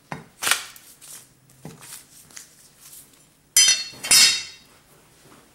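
Forged kitchen knife chopping through paper onto a wooden cutting board: two sharp chops at the start, then a few lighter taps. About three and a half seconds in come two louder scraping, rustling sounds, with the steel blade set down flat on the board and the paper scraps handled.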